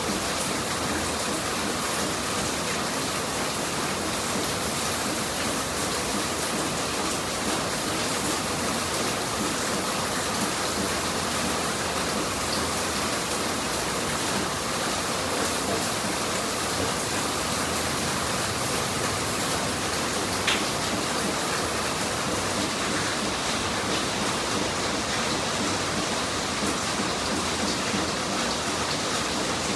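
A steady, even hiss, like heavy rain or rushing air, with one short click about two-thirds of the way through.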